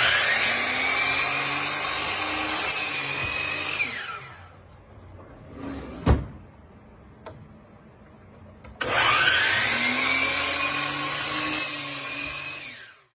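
Woodworking jointer running twice for about four seconds each, a high whine rising as it comes up to speed and falling away as it stops, with a sharp knock in the pause between the runs.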